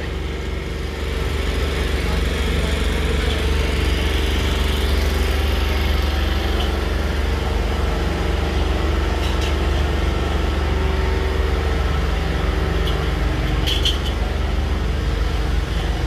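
An engine running steadily: a constant low rumble with a steady hum above it.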